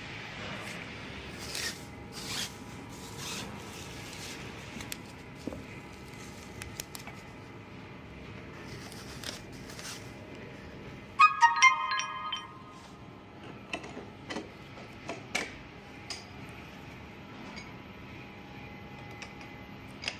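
A short ringing chime of several clear notes sounds twice, about nine seconds apart, each starting suddenly and fading within a second. Between them, soft rustling of bubble wrap and gloved handling of the scooter's front wheel.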